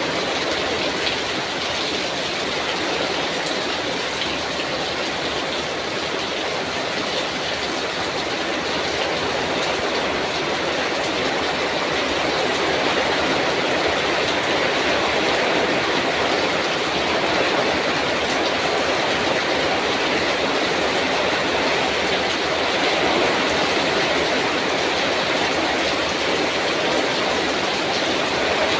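Heavy rain pouring down in a steady, dense hiss, growing a little louder about halfway through.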